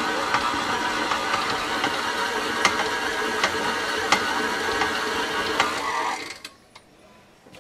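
KitchenAid stand mixer running under load, its motor and gearbox whirring steadily as the beater works thick cookie dough, with occasional sharp clicks. The running stops abruptly about six seconds in.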